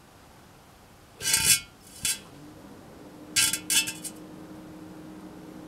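Fake Nokia charger circuit board failing under overload: sharp crackling bursts of electrical arcing, the first about a second in, a short one just after two seconds, then a rapid cluster of pops and crackles around three and a half seconds as the board flashes and burns. A faint steady hum runs underneath.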